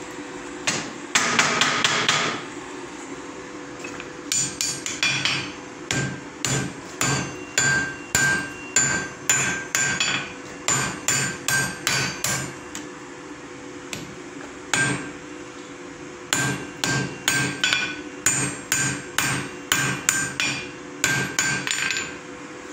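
Hand hammer striking white-hot iron on an anvil to forge-weld a fluxed joint: steady blows about two a second with a ringing tone, in two runs with a pause of a few seconds between. A denser clatter of quick strikes comes about a second in, and a steady hum runs underneath.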